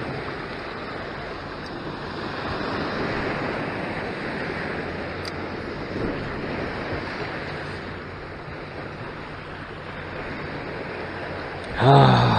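Ocean surf washing on a rocky shore, swelling and easing, with wind buffeting the microphone. A brief voice sounds near the end and is the loudest moment.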